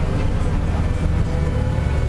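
Farm tractor's diesel engine running steadily under way, a constant low drone.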